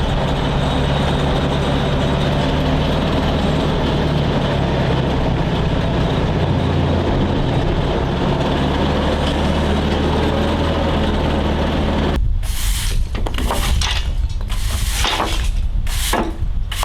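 A machine running with a steady low hum and dense noise, which cuts off abruptly about twelve seconds in; then a series of short scraping, rubbing strokes over a lower rumble.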